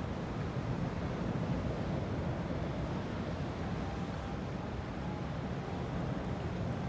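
Steady low rumble of boat traffic and water wash, with wind on the microphone.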